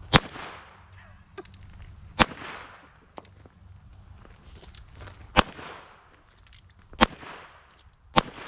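Handgun fired five times at an uneven pace, each shot a sharp crack followed by a short echo that fades out.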